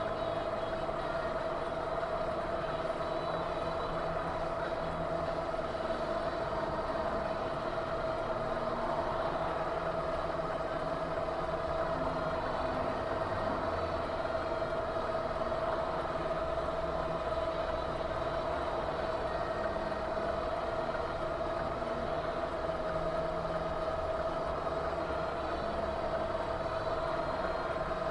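Steady vehicle running noise, engine and road, with a constant whine over it and no crash impact.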